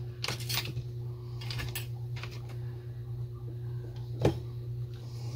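Scattered light clicks and taps of small plastic and metal parts being handled and fitted inside the body of a Zebco One Classic spincast reel during reassembly, the sharpest click about four seconds in, over a steady low hum.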